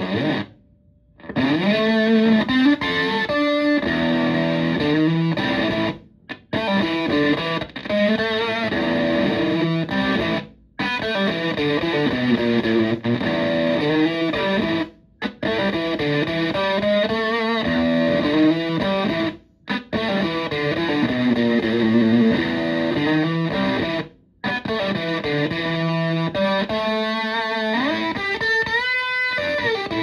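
Stratocaster electric guitar played through a Tone Bender MKI fuzz pedal into a Fender Twin Reverb-style amp: thick fuzz-distorted riffs and chords in phrases broken by short, abrupt silences about every four to five seconds, with a note sliding upward near the end.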